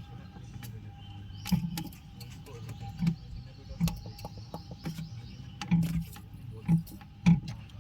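Starting timer or relay on a 125 kVA generator's control panel clicking about once a second at uneven spacing over a steady low hum; the clicking is the starting-timer sound problem being shown.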